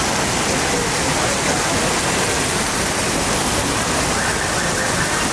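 Heavy rain falling steadily, a constant loud hiss of water.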